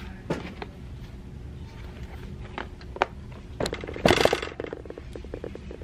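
Camera handling noise: a few light clicks and knocks, then a loud rustling scrape about four seconds in as a hand grabs the camera. A steady low hum runs beneath.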